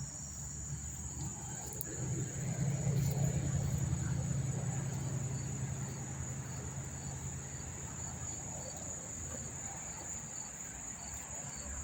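A dense chorus of crickets chirping, a continuous high trill with no gaps. A low rumble swells about two seconds in and dies away after about seven seconds.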